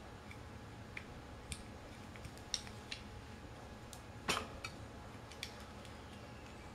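Light clicks and clacks of a wheelchair caster wheel and its small metal parts being handled during disassembly, scattered irregularly, with one louder clack a little after four seconds in.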